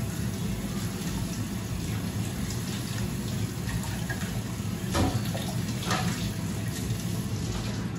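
Kitchen tap running into a stainless-steel sink as a steel mixer-grinder jar is rinsed under it, with a couple of short clanks of the jar against the sink partway through.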